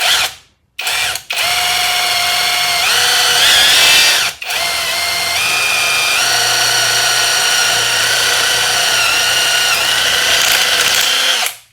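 Cordless brushless drill motor of a SakerPlus 3-in-1 tool running a 6 mm drill bit: a steady whine that steps up and down in pitch several times. It stops briefly about four and a half seconds in and starts again after a short blip at the very start.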